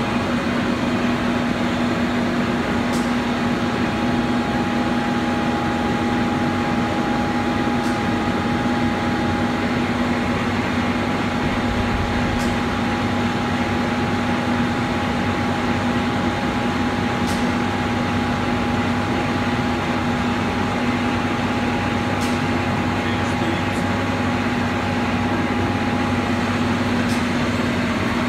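A 30-inch Bullard Cutmaster vertical turret lathe running under power, a steady mechanical hum with a thinner steady whine above it that drops out near the end. A faint tick comes about every five seconds.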